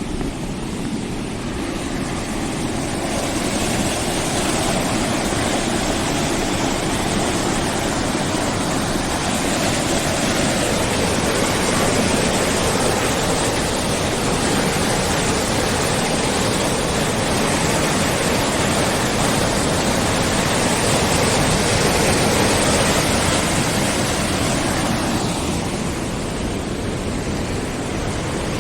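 Swollen monsoon floodwater rushing past in a river, a steady loud wash of moving water. It swells a little in the middle and eases slightly near the end.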